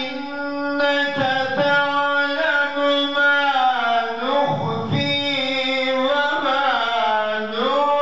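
A man's voice reciting the Qur'an in the melodic tilawah style, holding long notes and sliding between pitches in ornamented turns.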